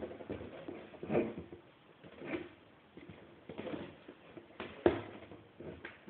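Cardboard box being scratched, bumped and knocked as a cat paws and plays at it: irregular scrapes and thumps, the loudest knock about five seconds in.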